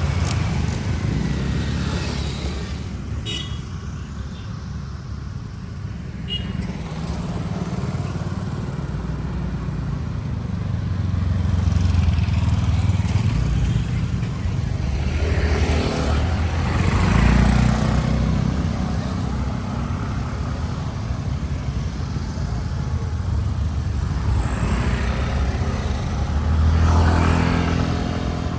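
Motor vehicle engine running steadily with road noise, swelling louder three times as traffic goes by.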